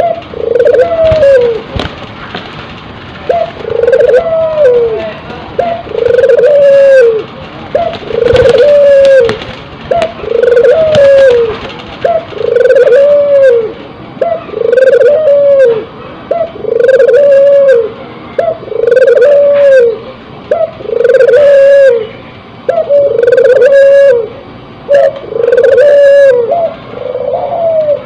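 Ringneck dove (puter) bow-cooing over and over, about one arched coo a second, each note rising and then falling in pitch. The coos start about three seconds in and keep an even rhythm.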